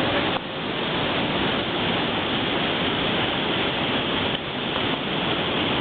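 Waterfall cascading: a steady, even rush of falling water.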